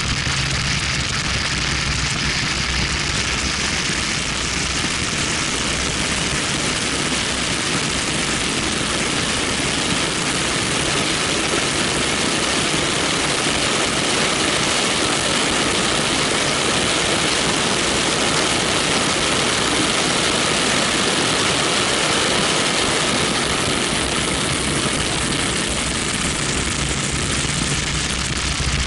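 Wind rushing over an action camera mounted on the outside of a BMW 1M at track speed, mixed with tyre noise. Underneath runs the car's twin-turbo 3.0-litre straight-six, whose low note comes through most strongly near the start and the end.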